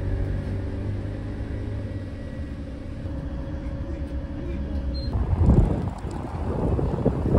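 City bus running, heard from inside the cabin as a steady engine rumble and hum. About five seconds in it gives way to gusty wind on the microphone outdoors.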